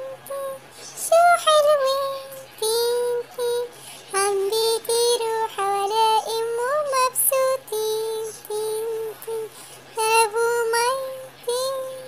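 A child's voice singing an Arabic children's song: one sung melody line of held notes that change pitch, with short breaks between phrases.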